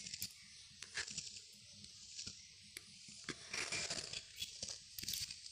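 Faint scattered clicks and light knocks of dough being rolled out on a wooden board, with a brief rubbing sound about three and a half seconds in as a hand smooths the thin dough sheet.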